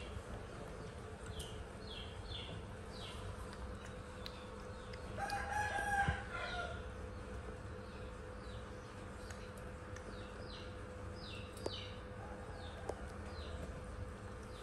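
A rooster crows once about five seconds in, lasting about a second and a half. Short high falling chirps repeat on and off around it over a steady low hum.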